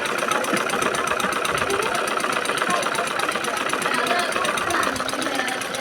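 Sewing machine running steadily, its needle stitching in a fast, even clatter.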